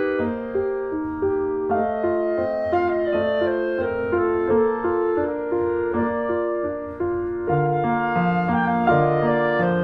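Instrumental background music with a piano and a woodwind melody. Lower notes join in about three-quarters of the way through.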